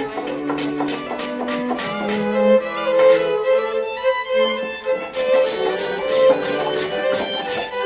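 Background music led by violin and bowed strings, with sharp percussive hits through it.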